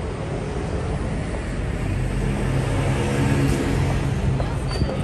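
Street traffic rumble, with a large vehicle's engine hum growing louder about two seconds in and fading away before the end.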